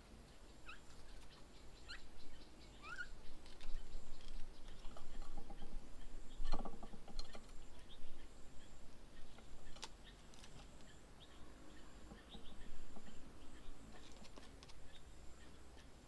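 Garden birds at a bird table giving short rising chirps and calls, with one louder, harsher call about six seconds in. Scattered light taps and clicks are mixed in.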